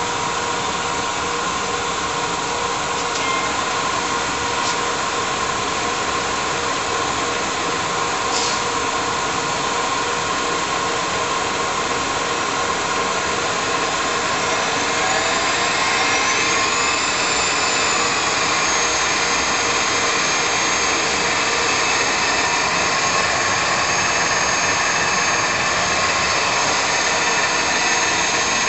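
A 1943 Monarch 10EE lathe, with its generator-type drive, running with a steady machine hum and whine. About fourteen seconds in, a high whine rises in pitch over a couple of seconds and then holds steady as the spindle is brought up to speed.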